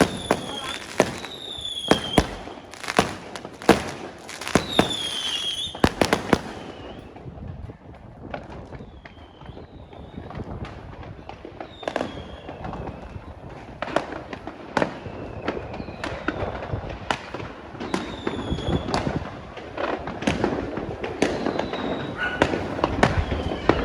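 Fireworks going off in a steady barrage of sharp bangs and pops, with short whistles falling in pitch between them. The barrage thins out about seven seconds in and builds up again after about twelve seconds.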